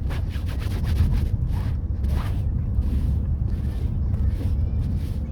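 Car interior on the road: a steady low road and engine rumble, with a run of light tapping and a short child's vocal sound about two seconds in.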